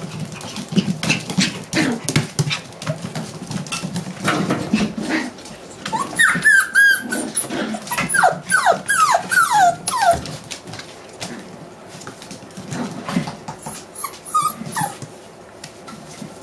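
Young puppies playing: low growls in the first few seconds, then a run of about eight short, high yelps, each falling in pitch, from about six to ten seconds in, and one more yelp near the end. Light clicks and taps of claws on a wooden parquet floor run through it.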